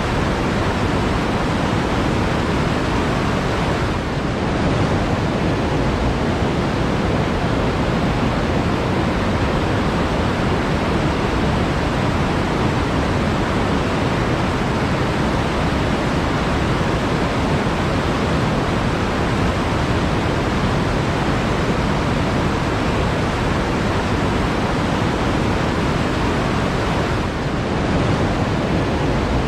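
Flowing water making a steady, even noise, with a brief slight dip about four seconds in and again near the end.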